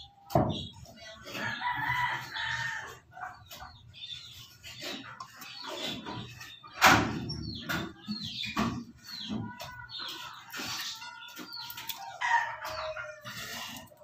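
Clicks and knocks from handling and seating a three-way wall switch in its plastic box, the loudest a sharp knock about seven seconds in. A bird calls in the background twice, near the start and near the end.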